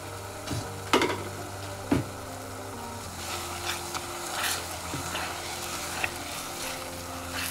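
Tomato puree frying in hot oil in a pan, sizzling as a spoon stirs it through the masala. There are two sharp clacks of the spoon against the pan about one and two seconds in.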